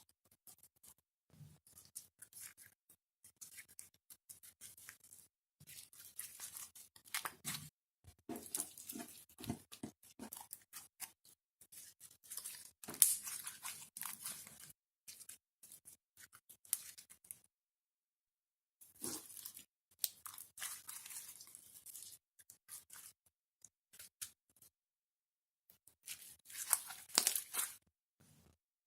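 Clear slime mixed with fruit beads being squished and poked by hand: irregular sticky crackles and clicks in bursts, with a few short pauses.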